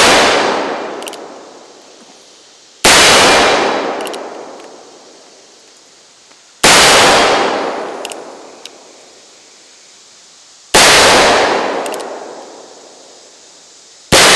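Original Colt 1860 Army .44 cap-and-ball revolver firing black-powder paper cartridges: four single shots about four seconds apart, each a sharp bang that echoes away over about two seconds. A faint click follows each shot as the hammer is cocked again. The sound opens on the fading echo of one more shot.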